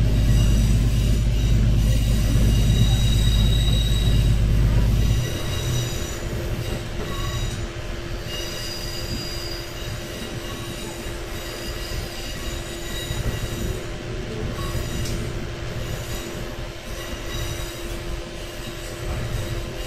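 Diesel railcar running along the track: the engine drones loudly under power, then drops away abruptly about five seconds in as the throttle is eased. What is left is steady wheel-and-rail running noise with thin, high wheel squeal.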